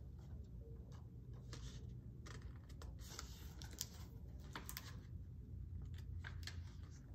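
Pages of a softcover picture book being turned and handled: scattered paper rustles and soft clicks over a low steady hum.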